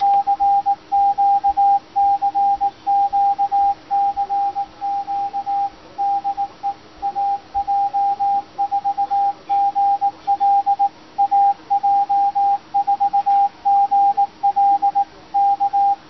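Morse code tone from a Kenwood TS-480 transceiver's CW sidetone, keyed by an Arduino Nano automated straight-key keyer sending a stored message. It is one steady pitch, switched on and off in an even run of dots and dashes with short gaps between characters and words, and it stops at the end.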